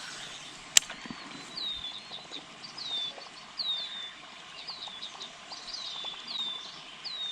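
A bird calling repeatedly: a series of short, high chirps that each slide downward, about two a second. A single sharp click comes about a second in.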